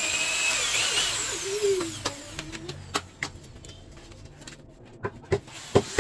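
Corded electric drill running, its whine falling in pitch as it winds down about two seconds in. Then scattered clicks and knocks as the drill and chuck are handled, sharper near the end.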